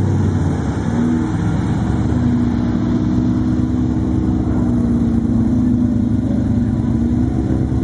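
Supercharged V8 engine of a Ford Popular hot rod running at low speed, a loud, deep, pulsing exhaust rumble. A steady tone rides over it, edging up in pitch and falling back a little near the end.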